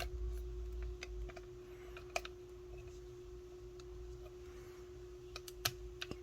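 Faint, scattered small clicks and taps from handling a cassette Walkman's small parts during repair, over a steady low hum.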